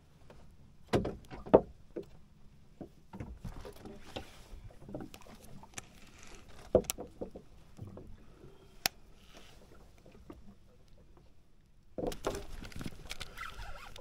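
Scattered knocks and clicks of fishing tackle being handled in a small wooden boat: reels and rods bumping on the hull and seat, the sharpest knock about a second and a half in. Near the end, a denser rustling of gloves and clothing.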